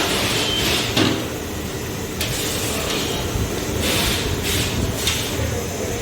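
Tyre-shop noise while a motorcycle wheel is balanced on a wheel balancer: a steady low hum, with a sharp knock about a second in, a click a little later, and several short hissing spurts.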